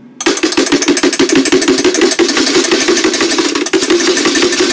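A motor running loudly with a steady hum and fast, even ticking. It starts suddenly just after the start and dips briefly near the end.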